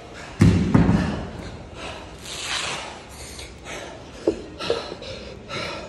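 A pair of 70 lb hex dumbbells dropped onto the gym floor, landing as two heavy thuds about a third of a second apart, followed by the athlete's hard, ragged breathing at the end of the workout, with a couple of small knocks near the end.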